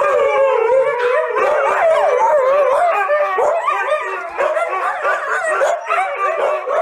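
Dogs howling and yowling together, several overlapping voices wavering up and down in pitch without a break.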